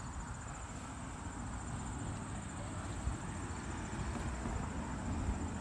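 Steady, high-pitched insect trill over a low rumbling background.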